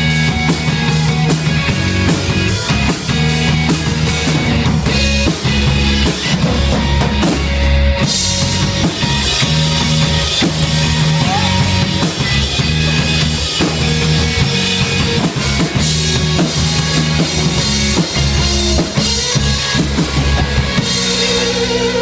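A live rock band playing loudly: drum kit, bass guitar and acoustic-electric guitar, with a steady beat of drum hits.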